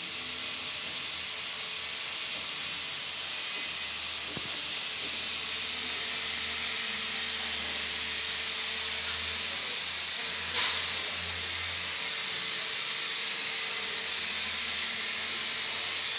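Steady hissing noise with a thin, high, constant whine and a low hum underneath. A faint knock comes about four seconds in, and a sharper one about ten and a half seconds in is the loudest moment.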